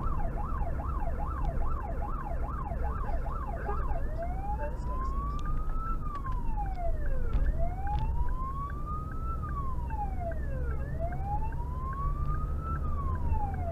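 Emergency vehicle's electronic siren on a code 3 run. It switches about four seconds in from a fast yelp, about two sweeps a second, to a slow wail rising and falling every three and a half seconds or so, over steady engine and road noise.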